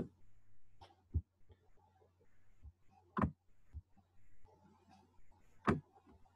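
Faint computer mouse clicks while dragging and resizing items on screen: a few short sharp clicks, the strongest about a second, three seconds and near six seconds in, over a low steady electrical hum.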